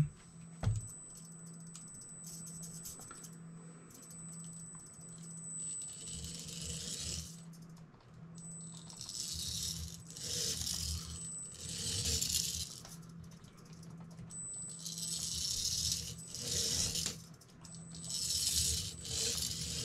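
Tiny 1:76-scale RC car's electric motor and plastic gears whirring in short bursts of about a second, six or seven times, as it is driven in short runs. A faint thin high whine runs between the bursts.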